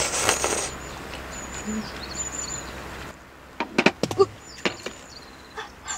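A glass pot lid falls off an electric multicooker and clatters on a wooden camp table in a few sharp knocks, about three and a half seconds in, as the noodle soup spills. Before that, noodles are slurped.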